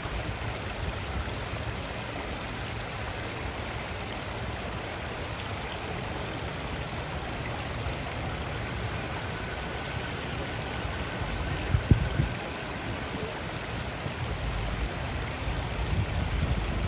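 Steady rushing of running water, with a low rumble underneath and a single thump about twelve seconds in. Two short high beeps near the end.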